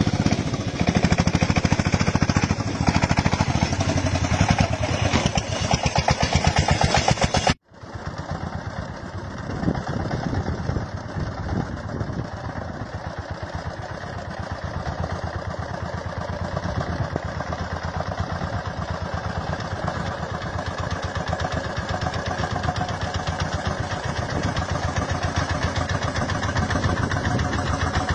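Small farm tractor's single-cylinder diesel engine chugging with a fast, even beat as it hauls a heavily loaded trailer up a steep rocky slope. About a quarter of the way in the sound cuts out for an instant and comes back a little quieter.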